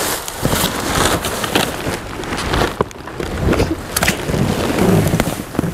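Rummaging through boxes and trash in a dumpster: irregular knocks and clicks over rustling of cardboard and plastic.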